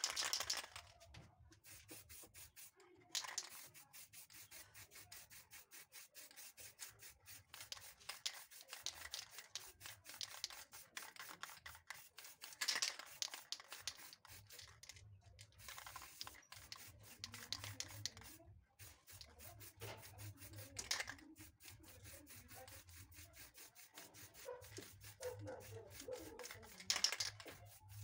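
Short hisses of an aerosol spray-paint can, about six in all, between steady rapid rubbing and dabbing of paper on the freshly sprayed paint.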